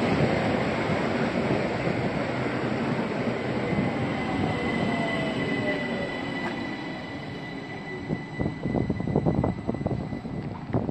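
ÖBB class 4024 Talent electric multiple unit running along the platform: steady wheel and running noise with a high steady whine and a slowly falling tone. Near the end the sound turns choppy, with irregular thumps.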